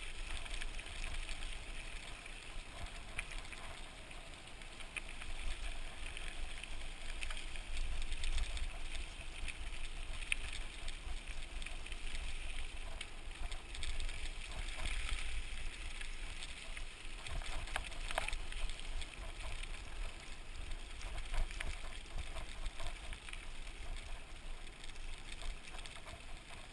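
A mountain bike riding over a dirt trail, picked up by an action camera: wind rumbling on the microphone, tyre and gravel noise, and scattered clicks and rattles from the bike.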